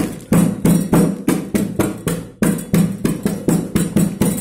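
Repeated blows of a hand-held pounder crushing hardened butterscotch brittle in a polythene bag against a wooden table, about three knocks a second with a short pause near the middle.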